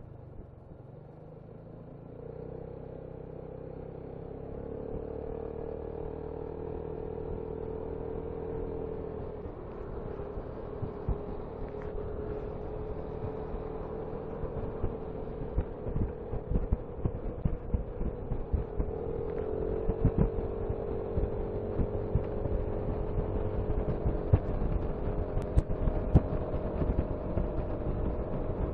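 Piaggio MP3 LT 500 scooter's single-cylinder engine under way, its note rising as it speeds up a couple of seconds in and again about two-thirds through, then holding steady. Gusts of wind noise on the microphone grow louder toward the end.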